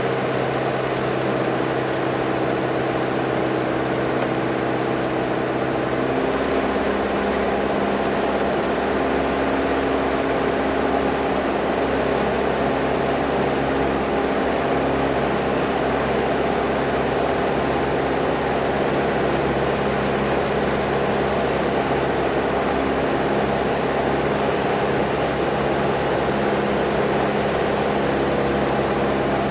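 Jabiru light aircraft's piston engine and propeller running steadily in flight, heard from a camera on the outside of the fuselage, with air rushing past. The engine note shifts about six seconds in.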